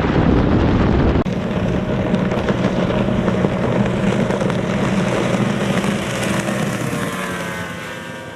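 Small race boat's outboard motor running at speed, with heavy wind noise on the microphone in the first second. After an abrupt change the engine note holds steady, then its pitch falls and it fades near the end.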